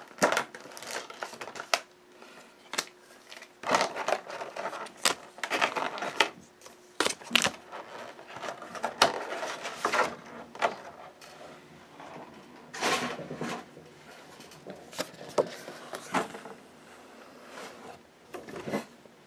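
Rustling and crinkling of Pokémon card-box packaging being handled, in irregular bursts with scattered clicks and knocks.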